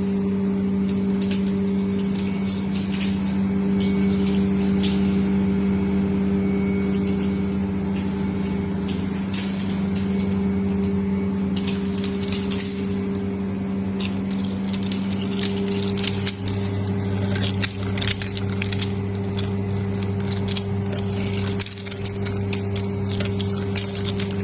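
Flake ice machine running: a steady electrical-mechanical hum from its refrigeration compressor and drive motor, with many irregular sharp clicks and crackles of ice flakes breaking off and falling.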